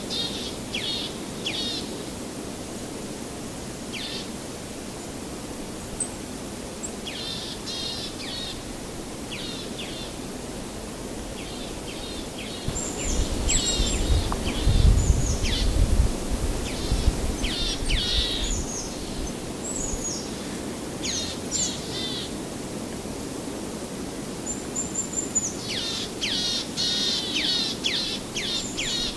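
Small birds chirping in quick, repeated short notes over a steady outdoor background hiss, the chirping busiest near the end. About halfway a low rumble swells for a few seconds.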